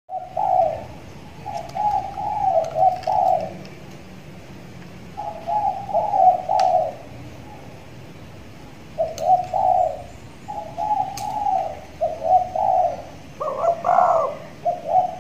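Spotted dove (tekukur) cooing: repeated phrases of low, throaty coos in several bouts with short pauses between them.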